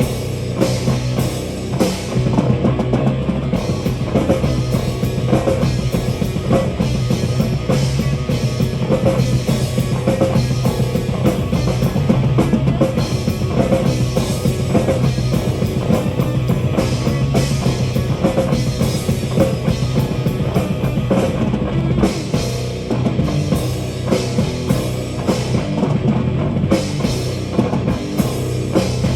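Live metal band playing an instrumental passage with no vocals: a busy drum kit with bass drum and cymbals over sustained low, heavy guitar and bass notes.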